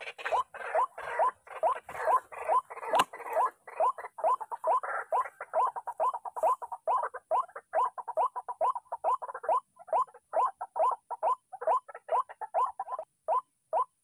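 White-breasted waterhen calling over and over, a steady run of short rising 'kru-ak' notes about three a second, rougher and more crowded in the first few seconds.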